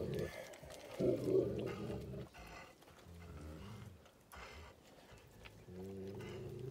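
A large Gaddi-type mountain dog giving low, drawn-out growling or moaning calls, with the last one held steady near the end.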